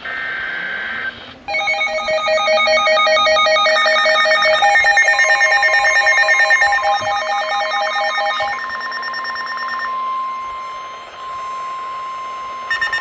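Emergency Alert System flash flood warning tones from a weather radio broadcast. A short data-burst tone comes first, then layered warbling alert tones from about a second and a half in. A steady weather-radio attention tone carries on alone after the warbling stops, and rapid pulsed beeping starts near the end.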